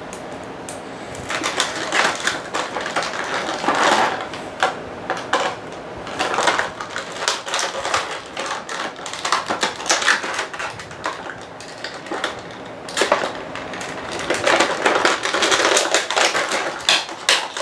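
Figure packaging being cut through and torn open by hand, with irregular crackling and crinkling that gets busier near the end.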